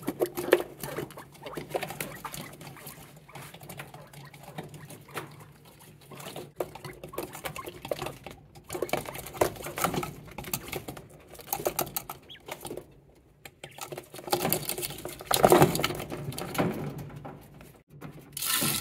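Quail pecking at a plastic feeder: quick irregular taps and clicks of beaks on hard plastic, with a louder stretch of scuffling about three-quarters of the way through.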